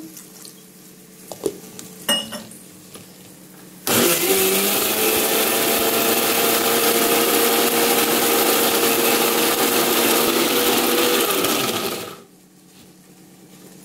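Electric mixer-grinder (mixie) running for about eight seconds with a steady hum, grinding a wet coconut and spice masala to a paste, then switched off. It starts about four seconds in after a couple of light knocks from the jar and lid being set, and stops about a second before the end.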